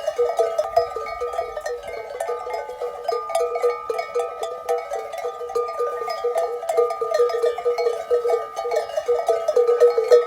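Many livestock bells clanking together without a break, a dense jangle with one bell ringing on steadily, as from a flock on the move.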